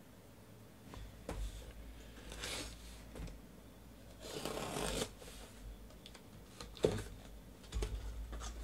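Folding utility knife slicing the packing tape along a cardboard shipping box, a long scraping rip about four seconds in, with shorter scrapes and rustles as the box is handled and a sharp knock near the end.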